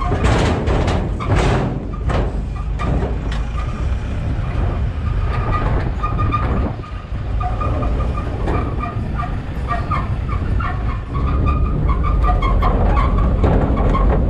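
A truck driving over a rough, broken road, heard from its open cargo bed: a steady low rumble of engine and tyres, with the metal body and cargo rails rattling and knocking as it jolts.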